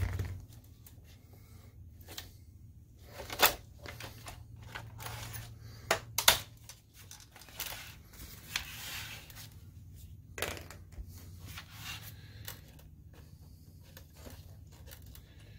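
Handling noise from reassembling a DLP projector: its plastic chassis and metal-shielded circuit board being shifted and set into place, giving scattered sharp clicks and knocks, the loudest about three and a half, six and ten and a half seconds in, with soft rustling of gloved hands between them.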